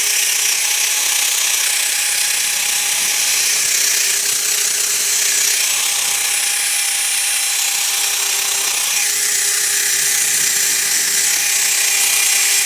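Power tool spinning a wire wheel against the rusty steel sway bar, stripping rust and old bushing remains. It runs steadily with a high, gritty hiss and cuts off suddenly at the end.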